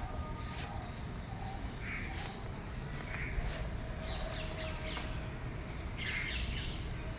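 A bird calling several times in short calls, over a steady low background rumble.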